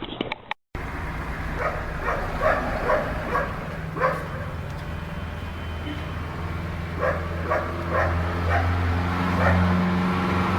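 A dog barking in short repeated yaps over a steady engine hum; the hum grows louder near the end.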